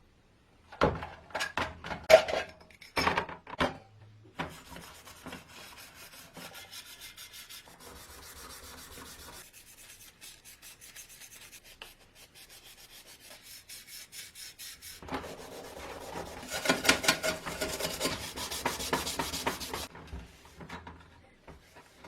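Hand sanding of a vintage coffee grinder part being restored: fast back-and-forth scratchy strokes that come in bursts, loudest near the end. A few sharp knocks of the piece being handled come first.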